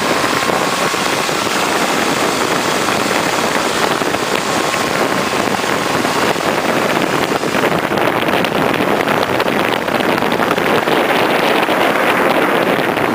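Steady engine and road noise from inside the cabin of a moving Mahindra Scorpio SUV; the upper hiss thins out about eight seconds in.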